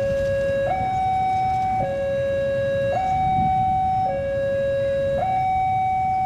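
Two-tone electronic warning alarm alternating evenly between a low and a higher tone, each held about a second, over a low rumble.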